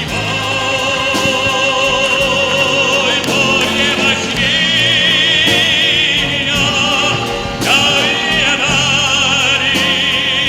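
Music: a singer in operatic style holding long notes with heavy vibrato over an accompaniment.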